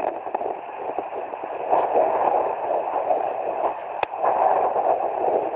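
Handheld fetal doppler picking up a 17-week fetus's heartbeat, heard through its small speaker as a pulsing whoosh that swells and fades. A sharp click comes about four seconds in.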